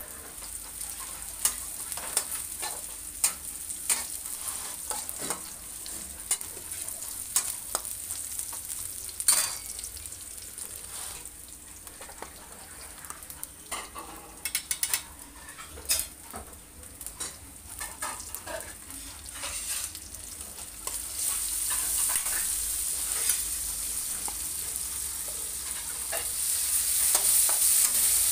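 Stir-frying in a steel wok: a metal spatula scrapes and clacks against the pan while vegetables sizzle in hot oil. The sizzling grows louder about two-thirds of the way through and again near the end.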